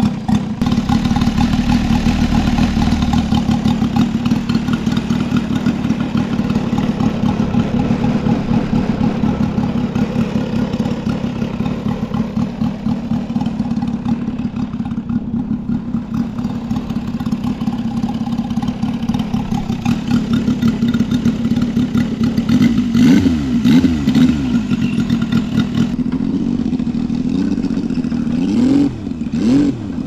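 Saito FG-33R3 three-cylinder four-stroke gasoline radial engine of a large model biplane running steadily at low throttle. In the last several seconds its pitch rises and falls a few times as the throttle is worked.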